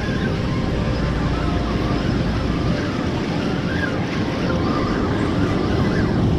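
Ocean surf washing and breaking over a rocky shoreline, with wind buffeting the microphone: a steady, even rushing noise.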